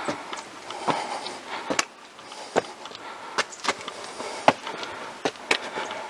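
Footsteps of a hiker on a walking track, sharp steps about one a second with a few quicker ones between.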